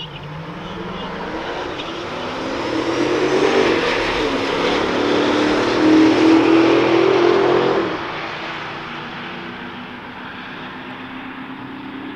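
Porsche 911 Turbo's twin-turbo flat-six launching hard off the drag-strip start line alongside a Dodge Charger, revving up through the gears. The engine sound is loudest a few seconds in, then drops off sharply about eight seconds in to a fainter run into the distance.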